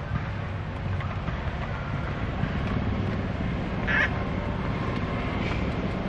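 A macaque gives one short, high call about four seconds in, over a steady low rumble.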